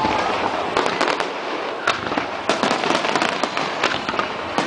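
Aerial firework shells bursting in quick succession over a harbour: sharp bangs and crackling, with a loud report every half second or so.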